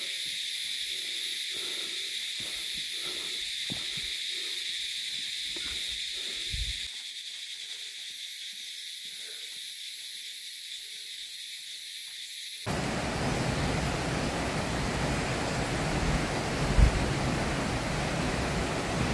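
Footsteps on a dirt trail, about two a second, over a steady high-pitched hiss; the steps stop about seven seconds in and the hiss goes on alone. About two-thirds of the way through it gives way suddenly to a louder, even rushing noise.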